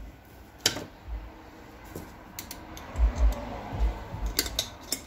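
Small metal clicks and taps of screws and a hand tool working on a Ford 8N carburetor body being screwed back together, with a few dull knocks about three seconds in as the part is handled on the workbench.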